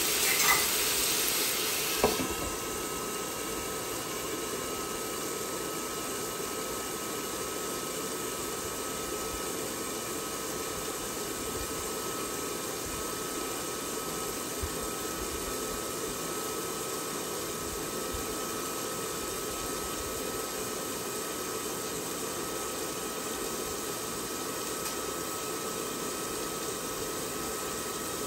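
Meat and vegetables sizzling and steaming in a wok; a sharp knock about two seconds in, as a glass lid goes onto the wok, after which the sizzle goes on steady and lower under the lid.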